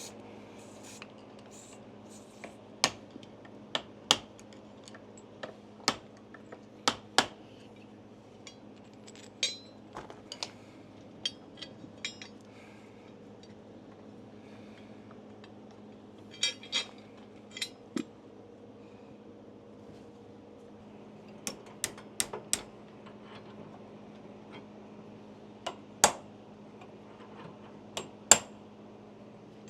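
Metal tools and parts clinking under a riding lawnmower's deck as its blade bolts are worked on: irregular sharp metal-on-metal clicks and taps, a few with a short ring, over a steady low hum. The two loudest strikes come near the end.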